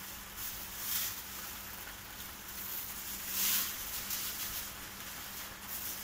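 Plastic bag rustling as mixed berries are shaken out of it into a pot of water: three short rustles, the loudest about halfway through, over a steady hiss.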